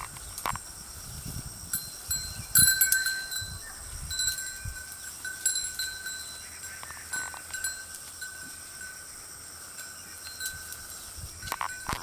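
A herd of goats grazing, with animal sounds and low rustling in the first few seconds. A small bell-like ringing tone sounds several times, loudest about two and a half seconds in.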